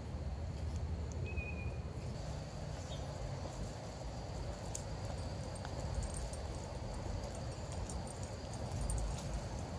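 Outdoor background noise: a steady low rumble, with a faint high steady tone and a single short chirp about a second in.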